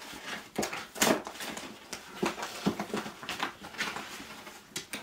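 Cardboard mailer being pulled open by hand: irregular rustling, crackling and tearing of card and paper, with the sharpest crackle about a second in.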